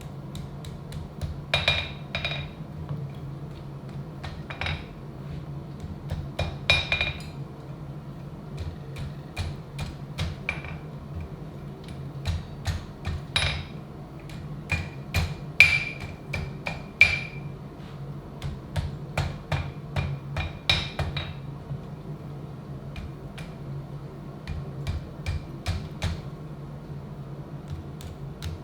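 Hammer striking steel: sharp blows in irregular clusters, many leaving a short metallic ring, over a steady low hum.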